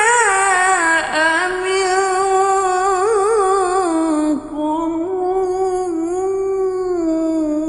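A male Quran reciter's voice in slow, melodic mujawwad-style recitation, drawing out a long vowel in wavering, melismatic ornaments. The line breaks briefly about four seconds in, then continues on a lower held note.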